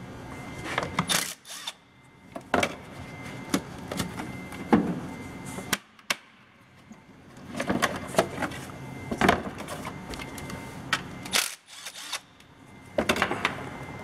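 Hands working in a pickup's engine bay to get at an ignition coil: scattered clicks, knocks and rattles of plastic covers, parts and tools being handled, with short quiet pauses between.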